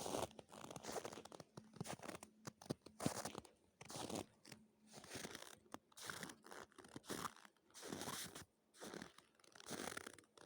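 Footsteps in dry, frozen snow at about minus 13 °C: a crunching squeak underfoot roughly once a second. The squeak is the sign of hard frost, below about minus 10 degrees.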